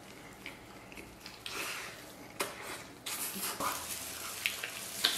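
Close-up eating sounds: roast lamb being bitten, torn off the bone and chewed, with wet smacking and crackling and a couple of sharp clicks, one about halfway through and one near the end. The sound gets busier from about three seconds in.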